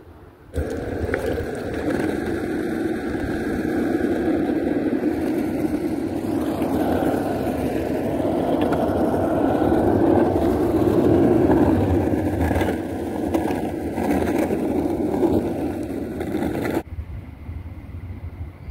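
Longboard cruiser's wheels rolling over asphalt: a steady rumble that swells a little in the middle, with a few sharp clicks from bumps in the pavement. It cuts off suddenly near the end.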